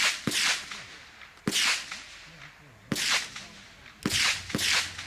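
Gunshots: six shots in about four and a half seconds, with two quick double taps, at the start and near the end, and two single shots in between.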